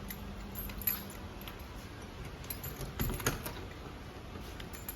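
Light clicks and small rattles, like small objects being handled, with a cluster of louder clicks about three seconds in, over a low steady hum that fades after the first second.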